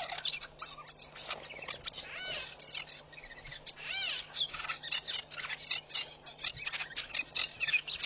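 Small birds chirping and calling, many short sharp chirps, coming thicker in the last few seconds, with one arching call about four seconds in.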